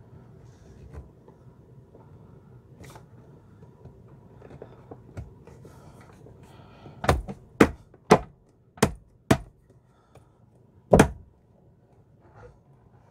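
Sharp knocks as the flush handle is fitted back onto an Aqua-Magic Style II RV toilet: faint handling at first, then five quick knocks about half a second apart and one more about two seconds later.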